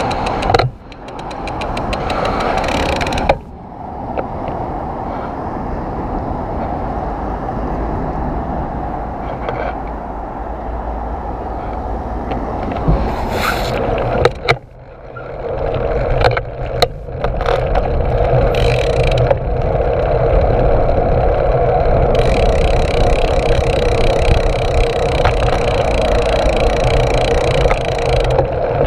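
Bicycle riding noise picked up by a camera on the handlebar stem: steady tyre and wind rush with a few sharp knocks and rattles over bumps. It drops out briefly a few times and is steadier and louder in the second half.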